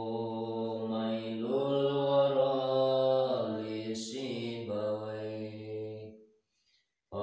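A man chanting Arabic in long, drawn-out held notes on a low pitch that steps up about one and a half seconds in and later drops back. The chant breaks off about six seconds in for a short silence and starts again right at the end.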